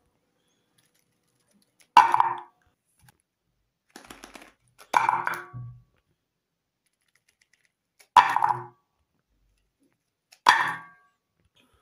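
Wrapped Lux soap bars set down one at a time onto a glass plate: four sharp clacks a few seconds apart, each with a brief ring of the glass. A faint rustle of wrapper comes about four seconds in.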